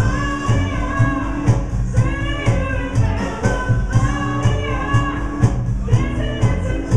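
A band playing music: a steady drum beat with bass and guitar, and a voice singing a melody over it.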